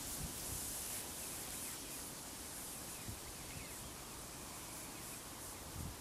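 Faint outdoor ambience at a coastal marsh: a steady hiss with low wind rumble on the microphone, and a few faint, distant bird calls about a second and a half in.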